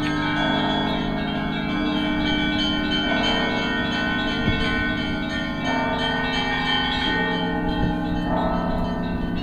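Russian Orthodox church bells rung together in a continuous peal (zvon): many bells sounding at once, the higher bells shifting pattern every second or so over the steady hum of the larger bells.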